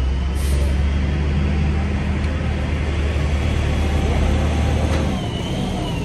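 Heavy engine running steadily with a low drone, with a short hiss of air about half a second in; the drone drops off about five seconds in.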